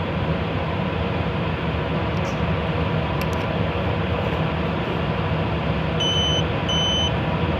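Steady mechanical hum and hiss throughout. About six seconds in, a continuity tester starts giving short, evenly spaced high beeps, a little more than one a second, signalling that the reed switch is making contact.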